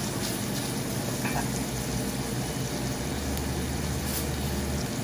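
Onions, ginger, garlic and tomatoes sizzling steadily as they sauté in butter in a glass wok, with a wooden spatula stirring through them near the start.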